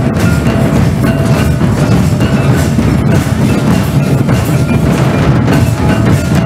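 Percussion-led Santali folk dance music, with drums playing continuously and short high notes repeating over them.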